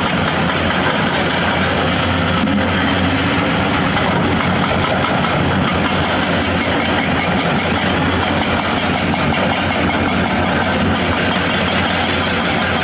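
Hydraulic excavator diesel engines running steadily while digging hard limestone, with light irregular clicking on top.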